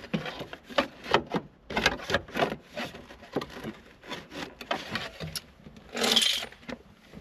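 Irregular clicks and knocks of a hand tool working the fastening nuts of a car's accelerator pedal, with a short scrape about six seconds in.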